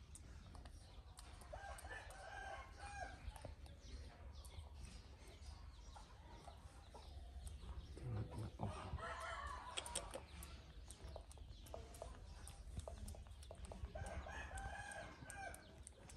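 A rooster crowing three times, each crow lasting about two seconds, over a steady low hum and faint scattered clicks.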